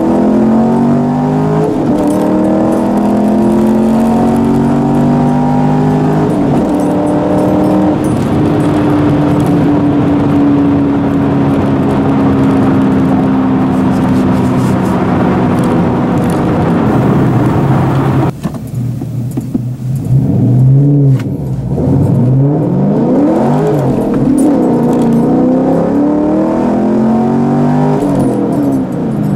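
2010 Chevrolet Camaro engine heard from inside the cabin, accelerating hard through the gears. The engine note climbs, steps down at an upshift about six seconds in, then climbs steadily for about ten seconds. Around eighteen seconds the throttle closes suddenly, the revs rise and fall a few times, and the note climbs again near the end.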